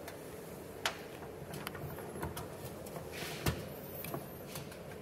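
A few light clicks and taps of metal as hands handle the split NV241 transfer case housing and its parts, the sharpest about three and a half seconds in.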